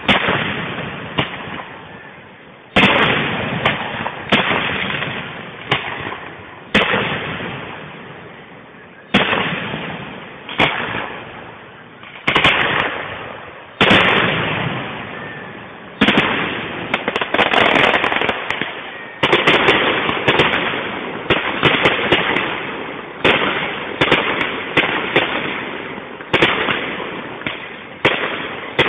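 Aerial fireworks shells bursting one after another, each a sudden bang that dies away over a second or two. The bangs come every few seconds at first, then about once a second or faster from about halfway through.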